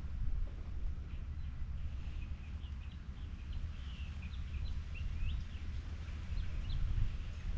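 Birds chirping in short high calls, clustered through the middle, over a steady low outdoor rumble.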